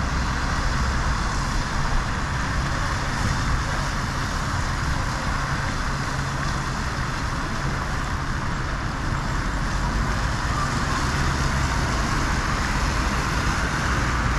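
Steady outdoor wash of heavy rain and road traffic, with a low rumble underneath.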